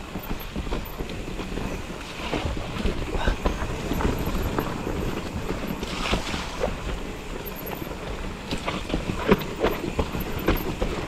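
A Scott Ransom full-suspension mountain bike rolling fast down a dirt forest trail: tyres rumbling over the ground and wind on the microphone, with frequent irregular knocks and rattles from the bike as it hits roots and bumps.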